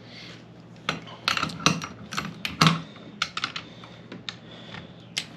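Irregular sharp metallic clicks and clinks of hand tools working a differential bolt, in uneven bursts with short pauses between.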